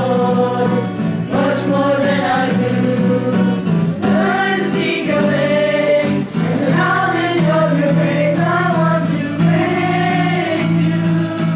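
Music: a choir singing a gospel-style song over steady instrumental backing.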